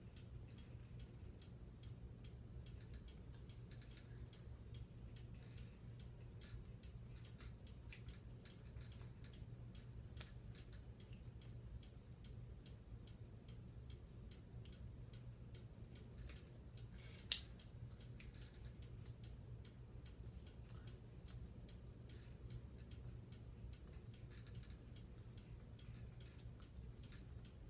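Near silence: room tone with a low steady hum and faint, rapid, evenly spaced ticking, and one sharper click about two-thirds of the way through.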